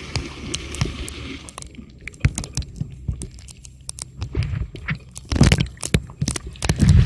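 Camera recording underwater or at the waterline: a dense run of irregular clicks and crackles over a low rumble of moving water. A wash of water noise fades out about a second and a half in, and a louder flurry of knocks comes around five and a half seconds and again near the end.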